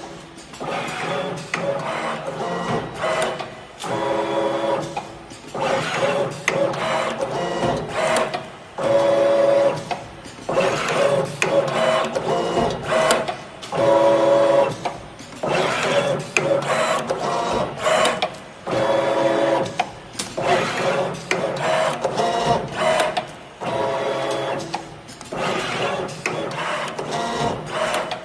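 YZ-3P automatic belt-driven wire cutting and stripping machine running through repeated cycles: a motor whine broken by sharp mechanical clicks, repeating roughly every one to two seconds.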